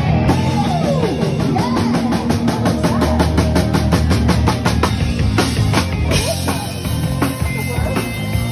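Live rock band playing: electric guitars over fast drumming, with a lead guitar line gliding up and down in pitch near the start.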